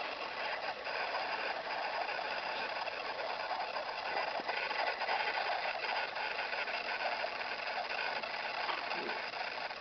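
A man snoring in his sleep: a steady, rough noise that swells a little in the middle.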